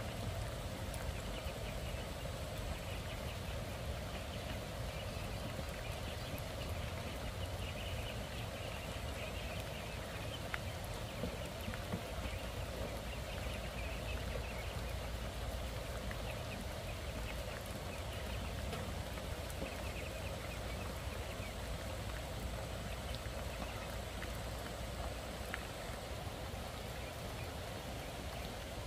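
Steady outdoor background noise: an even hiss over a low rumble, with faint scattered high specks of sound.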